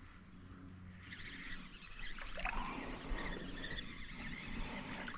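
Faint water splashing and handling noises as a small rock bass is reeled in and landed on a light spinning outfit.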